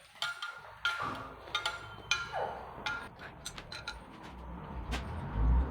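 Irregular light metallic clinks and taps of motorcycle rear-wheel parts and tools being handled, with a short falling squeak about halfway through. A low thump is the loudest sound, near the end.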